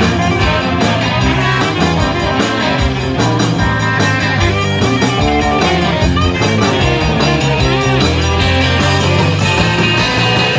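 Live rock band playing: a drum kit keeping a steady, fast cymbal beat under electric bass and electric guitar.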